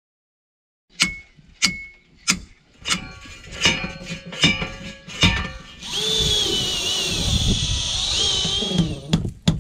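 After a second of silence, a series of sharp hammer blows about every 0.7 s, the first few ringing metallically. Then a power tool whirs steadily with a wavering high whine for about three seconds, and faster blows follow near the end.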